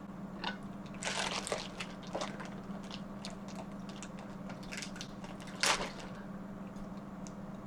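Close-up eating sounds from a seafood boil: wet chewing and squishing with a few short crunches and clicks, the loudest a sharp crunch a little before the end. A steady low hum runs underneath.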